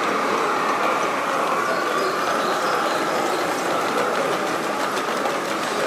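O gauge (7mm scale) model trains running along the layout's track, a steady rolling noise of wheels on rail with a mechanical rattle, as two trains pass each other.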